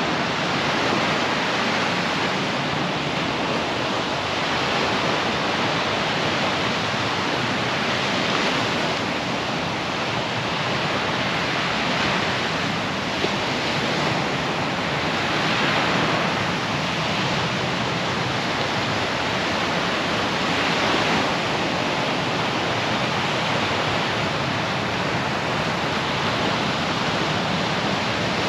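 Gulf surf breaking on a sandy beach: a steady rushing wash that swells louder every few seconds as waves break.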